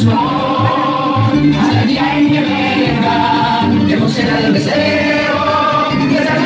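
Music with several voices singing together over a regular bass line.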